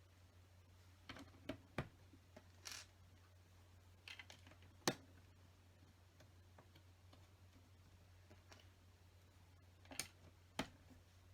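Small LEGO plastic pieces clicking and tapping as they are pressed onto a model, a handful of sharp clicks spread apart with the loudest about five seconds in, over a faint steady low hum.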